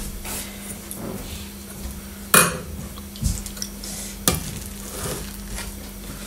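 A metal spoon scooping and scraping cooked rice in a stainless steel saucepan, with two sharp clinks, one about two and a half seconds in and one just after four seconds, over a low steady hum.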